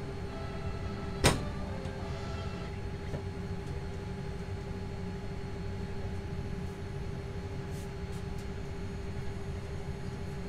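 Airliner cabin ambience: a steady low rumble of air and ventilation with a constant hum. A single sharp click about a second in is the Boeing 787 cabin door's handle latching as it is pushed down, with a few faint clicks later.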